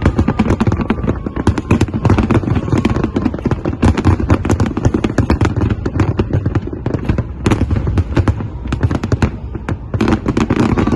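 Fireworks going off in a dense, continuous crackle of rapid bangs, many a second, with a few louder reports standing out.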